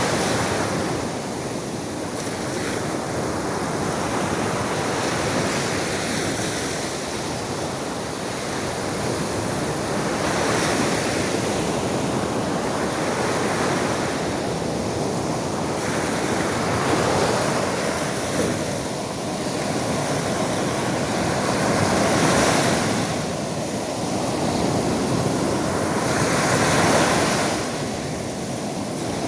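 Sea waves washing onto the shore, swelling and falling back every few seconds, with wind across the microphone.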